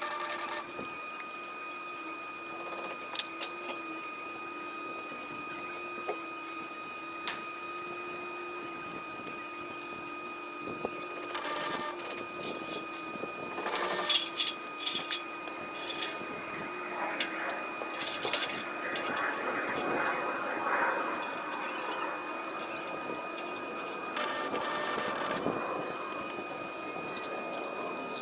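Welding panel wire: short bursts of crackling arc about 12, 14 and 24 seconds in, over a steady high whine, with scattered sharp clicks of metal.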